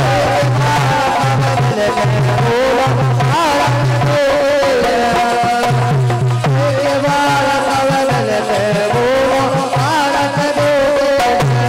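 Men singing a devotional folk song into microphones over a repeating drum beat and hand-held wooden frame clappers; the sung line rises and falls in long glides.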